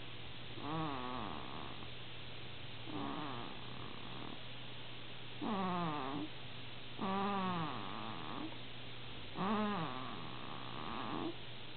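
Snoring, with a squeaky, whistling pitch on each breath: five snores, each falling in pitch, about two seconds apart.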